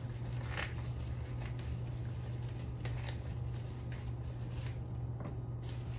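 Soft, scattered rustles and clicks of hands handling a sushi roll in plastic wrap on a sushi mat, over a steady low hum.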